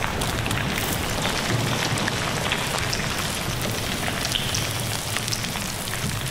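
Steady, dense rain-like hiss and crackle with scattered faint ticks, an ambient sound-design texture.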